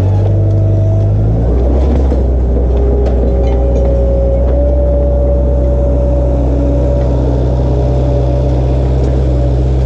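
A motor vehicle's engine running steadily, its pitch dropping about a second in as it settles to a lower, even idle.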